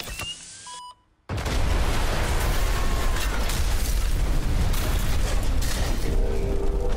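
A film explosion: a short electronic beep from the explosive charge stuck to the MOOSE robot, a moment of near silence, then a sudden loud blast about a second in. The blast is followed by continuous, heavy explosion and fire noise.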